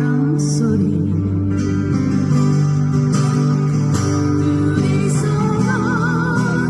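Acoustic guitar music with a sustained bass line and chords; about five seconds in a melody with wide vibrato joins over it.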